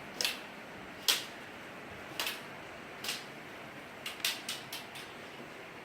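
Sharp clicks, about one a second, then a quick run of four near the end, over a steady faint hiss.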